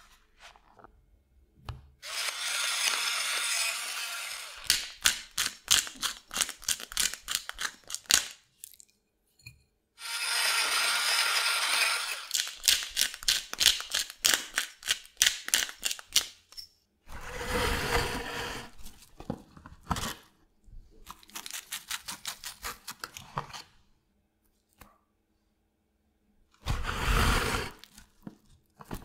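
Kitchen prep noises: several bursts of dry rustling hiss, each followed by fast runs of crisp clicks, while raw pork slices are seasoned with salt and black pepper. Near the end comes a fuller crinkling rush as plastic cling film is handled over a cutting board.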